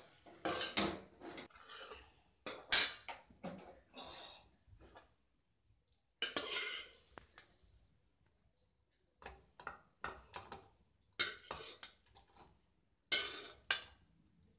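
A metal spoon scraping and clinking against a steel pan as saucy manchurian balls are scooped out and served, in irregular bursts with a pause of about two seconds midway.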